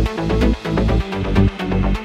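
Electronic dance music with a steady pulsing beat and heavy bass, about two beats a second.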